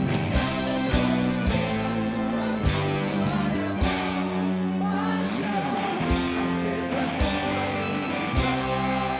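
Music: held chords over a steady bass, punctuated by heavy drum and cymbal hits.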